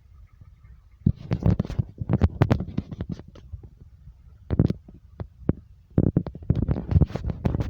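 Irregular clattering and knocking over a low rumble, starting about a second in and coming in bursts: objects shaking and banging together during strong earthquake shaking.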